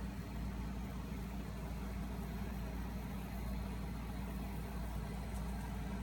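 Steady low mechanical hum, like a motor running at idle.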